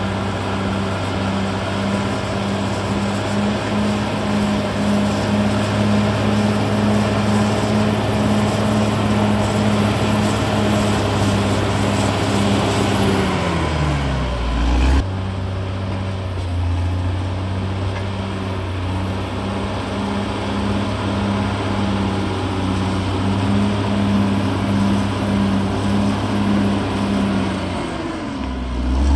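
Caterpillar D6R XL bulldozer's diesel engine running steadily with a pulsing beat. About halfway through its pitch falls away as the engine slows, then the sound cuts abruptly to a steady run again, and the pitch sags once more near the end.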